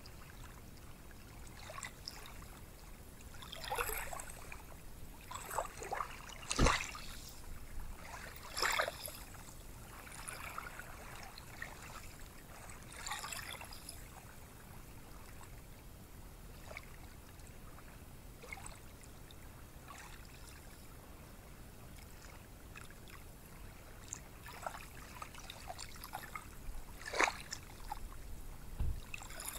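Small waves washing onto a beach: a steady hiss with short swishes of breaking water every few seconds.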